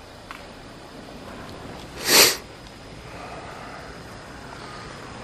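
One short, sharp sniff about two seconds in, over faint steady background noise.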